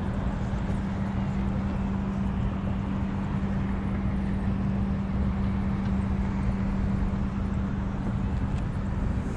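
A steady low hum over a constant rumbling rush, unchanging throughout.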